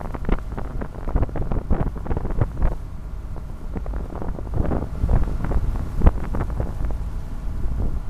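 Water rushing and splashing irregularly along the hull of a small harbour cruise boat under way, mixed with wind buffeting the microphone as a steady low rumble.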